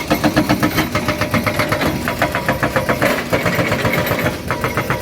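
Excavator's diesel engine running, with a rapid, even clatter over a steady low rumble.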